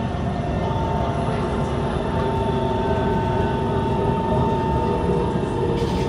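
Inside a Kawasaki C151 metro train running along the track: a steady rumble of wheels on rail, with a steady whine over it.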